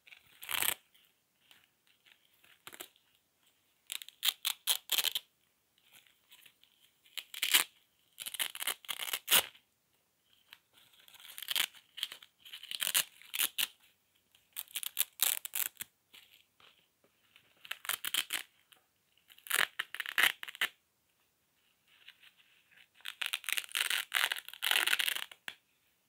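Velcro hook-and-loop strips being peeled apart again and again: about ten crackling rips, each a rapid string of ticks, some quick and some drawn out over a second or two, with short pauses between.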